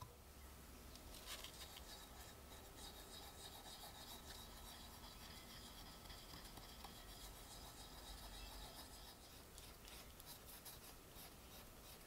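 Faint rubbing and scratching of a cotton swab spreading paste over a copper knife-handle scale, with many small scratchy strokes from about a second in.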